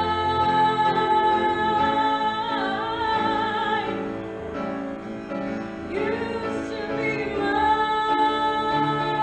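Music with a woman singing: long held notes with vibrato over sustained accompaniment.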